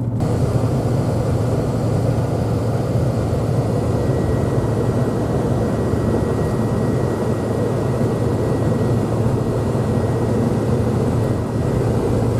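Pickup truck driving on a snow-covered mountain road: steady engine hum and tire and road noise at an even speed, with a faint high whine joining about four seconds in.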